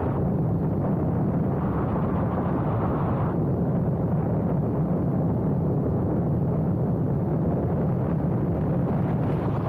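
Motorcycle cruising at a steady speed: engine and road noise mixed with wind rushing over the microphone, a constant heavy rumble.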